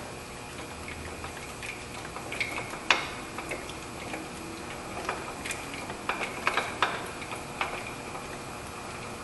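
Irregular small metallic clicks and taps as a bolt is threaded by hand into the belt tensioner's mount. The loudest click comes about three seconds in, and a quicker run of clicks follows past the middle.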